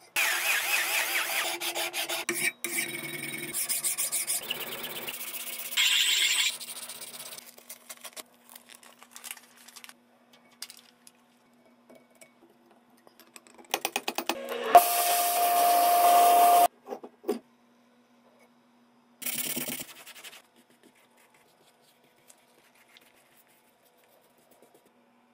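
A run of metalworking sounds from several short clips: a drill cutting into a steel vise jaw at the start, scraping and filing on metal, and a power tool running with a steady whine for about two seconds a little after the middle.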